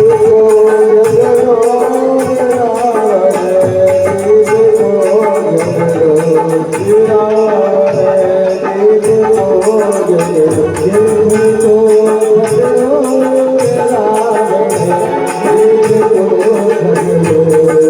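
Loud Indian folk music: a held, wavering melody line over a steady drum beat.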